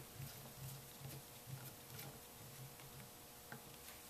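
Faint, scattered light clicks of a screwdriver turning a steel side plate screw into a Smith & Wesson Model 29 revolver frame.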